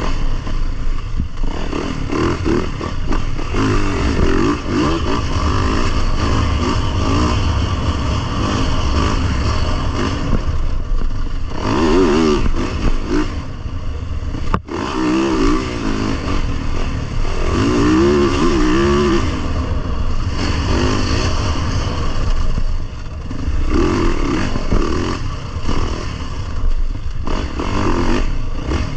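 Dirt bike engine running on a trail ride, the revs rising and falling again and again as the rider throttles on and off.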